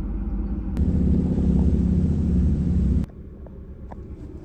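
Low rumble of a car's engine and road noise heard inside the cabin while driving. It grows louder a little under a second in and cuts off abruptly about three seconds in, leaving a quieter cabin hum.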